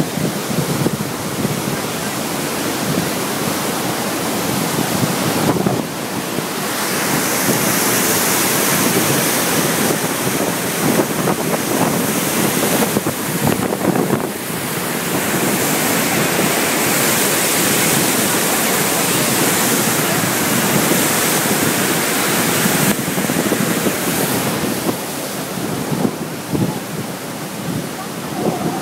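Floodwater pouring through the Guadalentín dam and rushing down the swollen river: a steady, loud roar of water, with wind buffeting the microphone.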